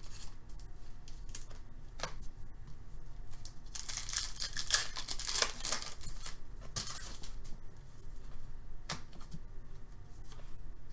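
Foil wrapper of a hockey card pack being torn open and crinkled, loudest in the middle, with a few sharp clicks from the cards being handled.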